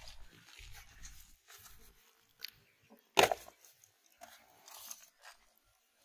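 A sharp plastic snap about three seconds in as the lid is pulled off a plastic tub, with a smaller click just before it, amid faint rustling and handling.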